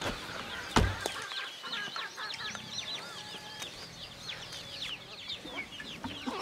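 Farmyard sounds: hens clucking among a busy chorus of short, high bird chirps. A single sharp knock comes just under a second in.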